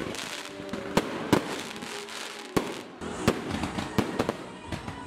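Fireworks going off: a string of sharp bangs and pops at irregular intervals over a continuous crackling hiss.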